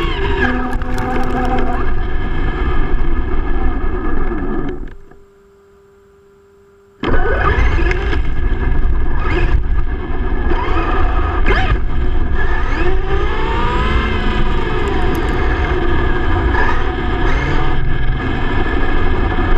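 Electric motor and drivetrain of a Traxxas E-Revo RC car whining, the pitch rising and falling as it speeds up and slows down, over tyre and road noise. About five seconds in the sound cuts to a faint hum for roughly two seconds, then comes back suddenly at full level.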